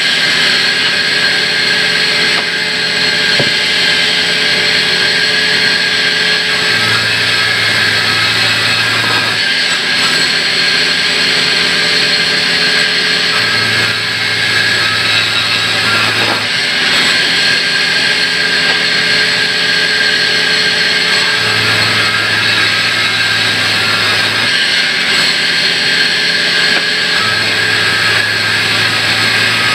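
Large sawmill bandsaw running and cutting through a heavy timber slab, a steady loud whirring, with a low hum that comes and goes in several stretches of a few seconds.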